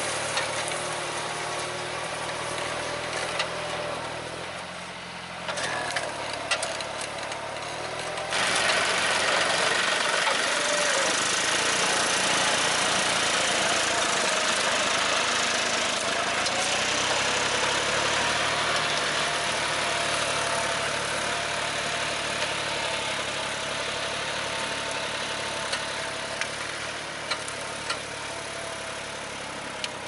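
Tractor diesel engine running steadily under load while pulling a reversible mouldboard plough through dry soil, with an abrupt change in the engine sound about eight seconds in.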